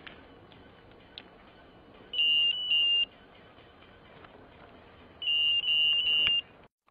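Electronic carp bite alarms on a rod pod beeping: two short beeps about two seconds in, then three more about five seconds in. They are set off as the angler handles the rods and lines on the alarm heads.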